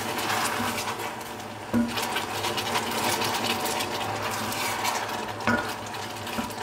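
Wooden spoon stirring boiling caramel sauce in a stainless steel pot, the sauce bubbling and crackling, with two louder knocks of the spoon against the pot, about two seconds in and near the end. A steady low hum runs underneath.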